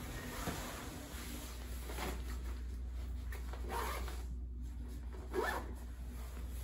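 A zipper on a soft travel bag being pulled open or shut in a few short strokes, about four over several seconds.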